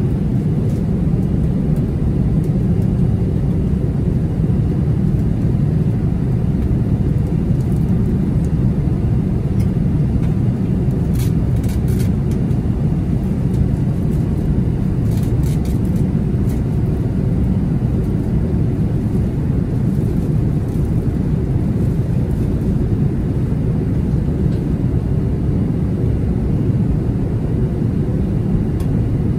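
Steady low roar inside an Airbus A380-800 cabin during the climb after takeoff: engine and airflow noise, with a few faint clicks about eleven and fifteen seconds in.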